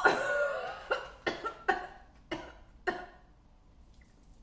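A woman's voice in a loud outburst, followed by about five short, sharp vocal bursts that come further apart and fade over the next few seconds. There are no words.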